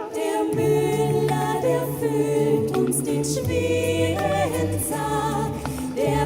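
A cappella vocal group singing in several-part harmony, with a deep sung bass line coming in about half a second in.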